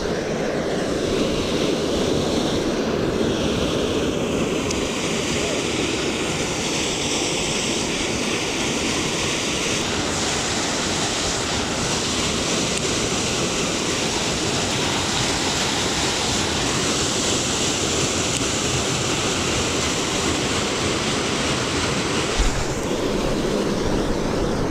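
Creek water rushing and churning as it pours into a concrete channel, a steady, even wash of noise.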